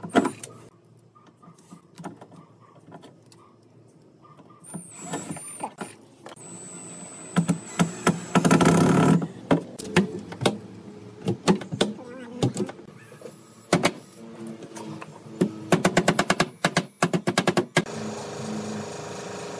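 Furniture-assembly noises: a sharp knock, a loud burst lasting about a second midway, then scattered clicks and a fast run of clicks. A steady machine-like hum comes in near the end.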